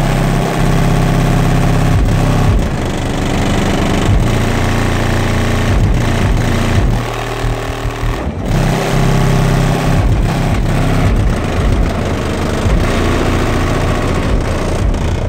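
Loud bass-heavy music from a 1994 Ford F-150's Sundown subwoofers driven by Crescendo amplifiers, heard from outside the closed cab. Deep bass notes are held for a second or two each and then change pitch, over a steady beat.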